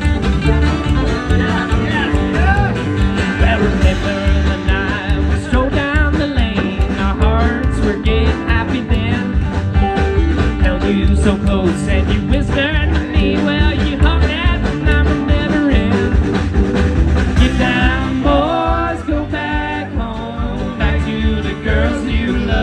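Live acoustic string band playing a bluegrass number with no vocals: a steady bass and rhythm under a wavering lead melody line.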